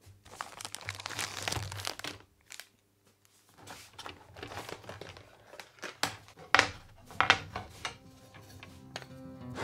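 Handling noise of wood pieces on a worktop: rustling and scraping, with a few sharp knocks a little after the middle as the blocks are set down.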